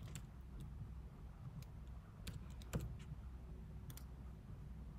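Faint, scattered keystrokes on a computer keyboard as a password is typed, with about half a dozen separate clicks, over a low steady hum.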